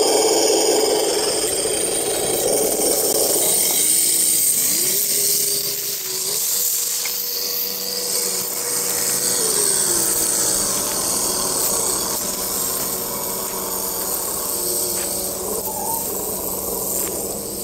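Electric motor and gears of an HG P402 RC crawler truck whining as it drives. The whine is loudest in the first few seconds, rises as it speeds up about four seconds in, holds, then falls away about ten seconds in, with brief rises again near the end, over a steady high hiss.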